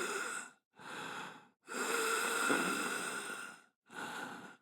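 A person breathing deeply in and out, several breathy rushes of air in turn: a short one, then a long one of about two seconds, then another short one.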